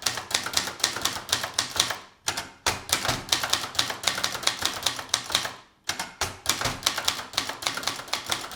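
Keys of a 1977 Brother Deluxe 220 manual portable typewriter striking in quick runs as the word Universität is typed, with brief pauses about two seconds and six seconds in.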